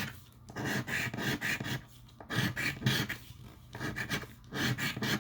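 Scratch-off lottery ticket being scratched, a coin or fingernail rasping over the latex coating in repeated short strokes with brief pauses.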